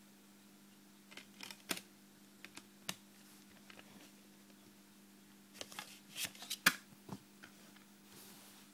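Plastic CD case being handled: scattered clicks and rustles of plastic and paper in small clusters. A sharp click about three-quarters of the way through is the loudest.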